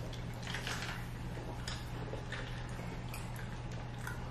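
Soda sipped through a straw from a fountain cup: a few short sucking and swallowing sounds, over a steady low hum.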